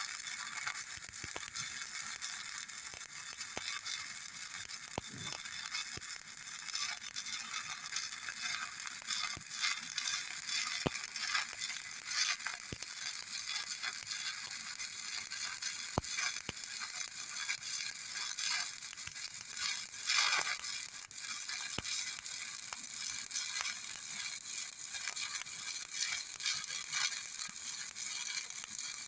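Stick electrode arc welding: the arc crackles and sizzles steadily, with scattered sharp pops and spatter ticks.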